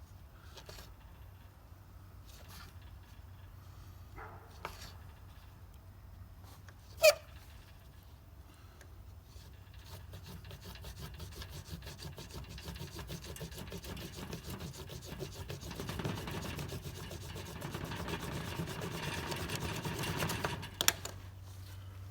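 Fire roll being rolled hard back and forth under a small pocket knife blade on a board: rapid scraping, rubbing strokes that grow louder and faster through the second half, then stop near the end. The hard pressure is what makes the roll heat up to ignition. A single sharp click sounds about seven seconds in.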